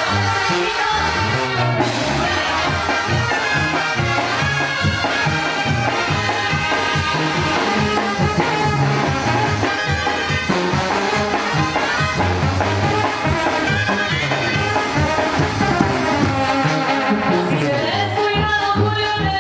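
Mexican banda brass band playing live: trumpets, trombones and sousaphone over a steady beat.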